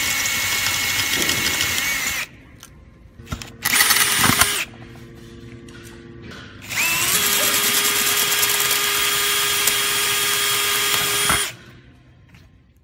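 Cordless drill-driver running to back screws out of the metal hardware plate on the end of a slimline door frame, in three runs: about two seconds at the start, a short burst about four seconds in, and a longer run of about five seconds that begins with a rising whine.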